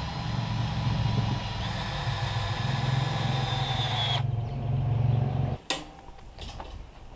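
A motor running steadily with a low hum and a high whine. The whine stops a little after four seconds in and the hum cuts off abruptly about a second later, followed by a few faint knocks.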